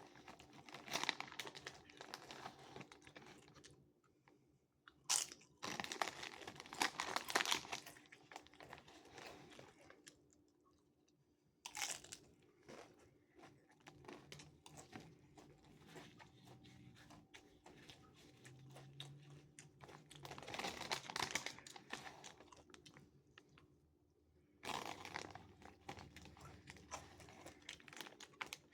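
A person chewing crunchy chips loaded with taco meat and cheese, in several bouts of crunching separated by quieter pauses.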